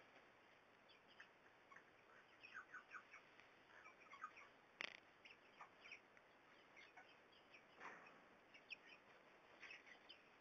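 Young Delaware and Rhode Island Red chickens, not yet crowing, making soft short peeps and chirps in scattered clusters. There is a sharp click about five seconds in.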